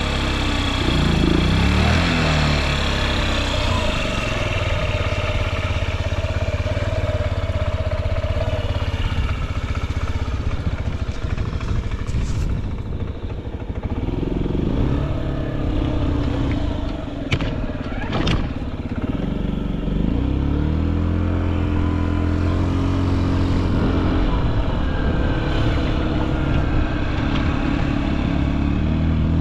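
Honda Zoomer AF58 scooter's carburetted 50cc four-stroke single idling, with the throttle blipped a few times so that the engine note rises and falls. The engine runs quietly with no abnormal noise.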